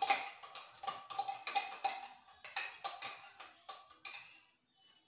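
A metal spoon clinking against a kitchen container: a dozen or so irregular taps, each with a short ring, dying away near the end.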